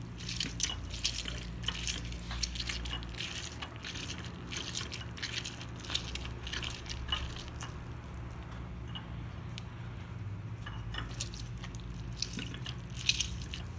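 Tangerine halves twisted by hand on a glass citrus reamer: irregular wet squishing and scraping of the fruit on the ridges, with juice dripping into the dish. The squeezing eases off for a few seconds past the middle, then picks up again.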